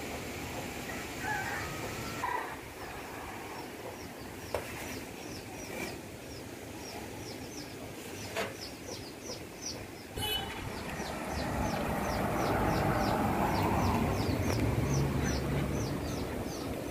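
A small bird chirping over and over in short, high, falling notes, two to three a second, over outdoor background noise. A low rumble swells in the second half, and a couple of sharp clicks come around the middle.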